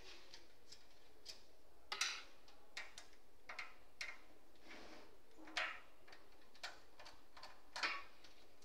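Screwdriver undoing the power supply's mounting screws at the back of a desktop computer's steel case: irregular light clicks and ticks, a sharper one every second or two, over a faint steady hiss.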